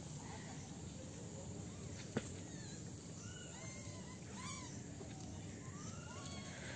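Outdoor animal calls: a string of short, arched chirping calls, with a single sharp click about two seconds in over a steady low background noise.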